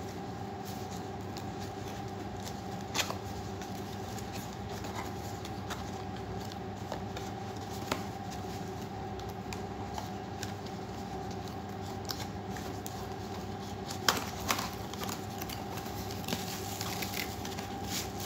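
A small cardboard box being handled and opened by hand: a few sharp taps and clicks, then a spell of cardboard rustling and sliding as the insert is pulled out near the end, over a steady background hum.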